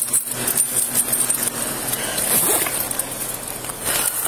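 Rustling and scraping close to a body-worn camera's microphone, with light metallic clinks like handcuffs or keys being handled.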